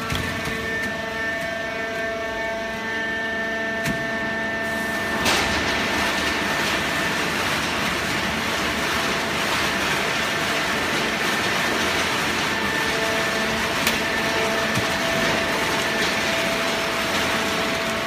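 Fully automatic horizontal hydraulic baler running: a steady machine hum with several held tones, joined about five seconds in by a louder, even rushing noise that continues steadily.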